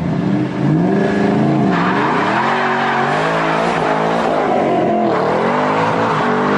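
Ford Mustang Shelby GT500's supercharged V8 revving hard as the car launches with traction control off, its pitch rising and dipping several times. From about two seconds in, the rear tyres spin and smoke with a loud steady screech.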